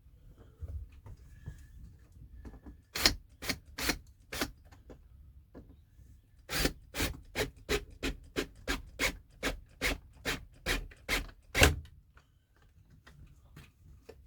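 Sharp knocks: four about three seconds in, then a steady run of about fifteen, roughly three a second, stopping suddenly near the end.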